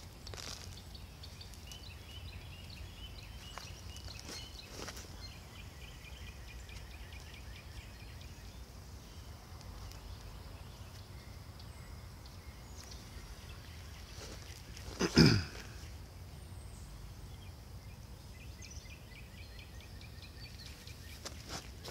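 Gloved hands rustling and digging through loose potting soil in a plastic bucket, over a steady low outdoor rumble, with birds chirping near the start and again near the end. About fifteen seconds in comes one short, loud burst.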